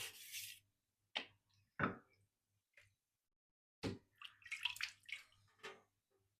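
Steel knife blade being stroked across a wet Shapton whetstone in short, irregular passes, with a couple of sharper knocks.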